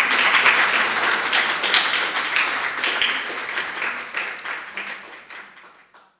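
Audience applauding, dense clapping that fades away near the end.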